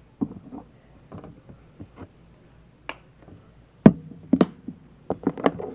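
Irregular knocks and taps of a utensil and containers being handled while slime ingredients are mixed. The loudest knock comes about four seconds in, then a quicker cluster of taps near the end.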